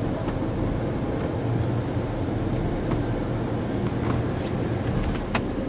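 Steady rumble and water spray of a Belanger SpinLite conveyor car wash tunnel, heard muffled from inside a waiting vehicle's cab, with a single sharp click near the end.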